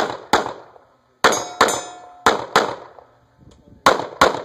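9mm pistol shots fired in quick pairs, eight shots in four double-taps. After the second pair a steel target rings on for about a second.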